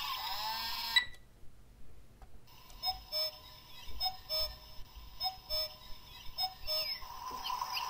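Small cube digital alarm clock going off through its tiny speaker: a click about a second in, then short electronic beeps in pairs, about one pair a second, and near the end a recorded birdsong nature-sound alarm starts.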